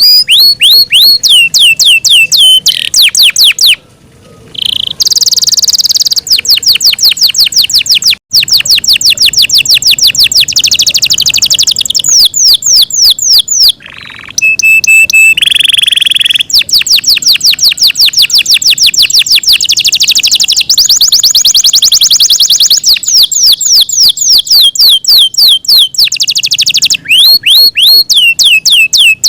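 Yorkshire canary singing a long song of rapid rolling trills, each made of fast repeated falling notes. It pauses briefly about four seconds in and again about fourteen seconds in, and holds a single steady whistled note around fifteen seconds in.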